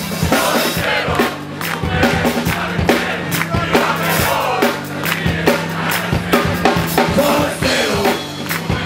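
Live band music with a steady drum beat and bass, heard with a large crowd.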